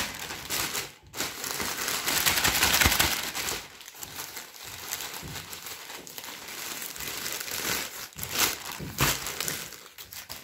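Plastic packaging crinkling and rustling as a courier bag and a clear plastic shoe bag are pulled open and handled. It is loudest in the first three seconds or so, then quieter with scattered bursts.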